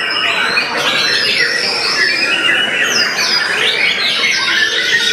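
White-rumped shama (murai batu) song: a fast, unbroken stream of varied whistles, chirps and rapid trills, rich in mimicked calls of other birds (isian), with more than one caged shama singing over each other.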